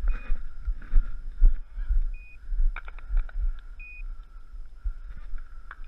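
Low, irregular thumps and rumble on a body-worn camera's microphone as its wearer walks through tall grass, with a few short high beeps and some sharp ticks.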